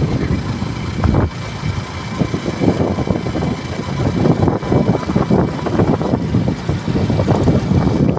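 Wind buffeting the microphone of a motorcycle riding at road speed, with the motorcycle's engine running underneath. The gusty rumble rises and falls continuously.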